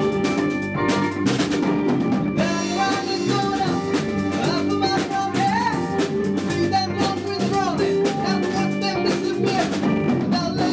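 Rock music from a full band: a drum kit keeping time under sustained chords, with a bending melodic lead line coming in about two seconds in.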